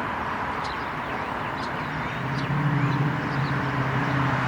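Steady outdoor hiss with a few faint, short, high chirps. A low, steady engine hum comes in about halfway and grows slightly louder, like a vehicle nearing.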